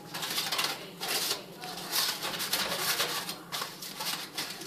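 Plastic tortilla bag crinkling and rustling in bursts as it is handled.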